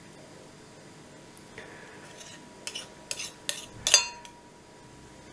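A metal spoon and knife knocking and scraping against glass measuring jugs as sticky sourdough starter is spooned from one jug into the other: a run of light clinks, the loudest a sharper clink with a brief ring about four seconds in.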